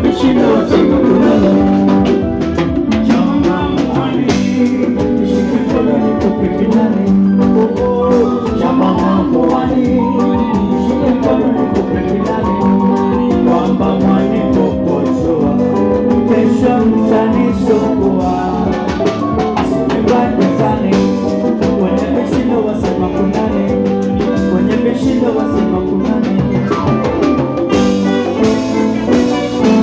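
Live band playing a dance tune, with saxophones, an electronic keyboard and drums, and a voice singing into a microphone over it.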